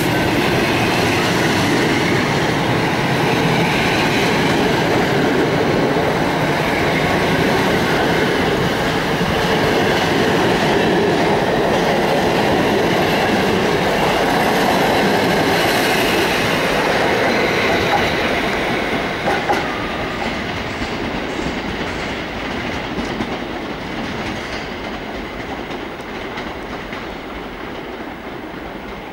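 Passenger coaches of a departing train rolling past close by on their wheels. The sound is loud and steady, then grows quieter about two-thirds of the way through and keeps fading as the train draws away.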